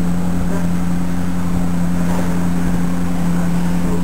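Steady low motor drone running at one constant speed, its pitch unchanging, loud and even throughout.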